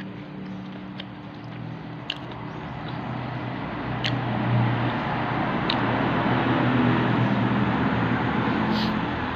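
Close-up eating sounds: chewing with a few sharp mouth clicks and smacks, over a steady low hum that grows louder about a third of the way in.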